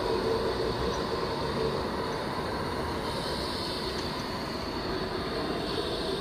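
Tram running along street track, a steady rumble of wheels on rails with a high whine over it, slowly easing as it moves away.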